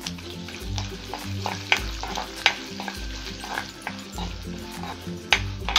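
Chana dal, urad dal and cumin seeds sizzling in hot oil in a metal kadai, the tempering being sautéed, while a spoon stirs and scrapes the pan with a few sharp clinks.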